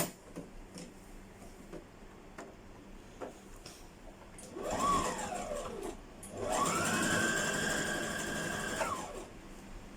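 Brother electric sewing machine stitching a hair weft: a short run about halfway in, its motor speeding up and slowing down, then a longer run of about two and a half seconds at steady speed that stops shortly before the end.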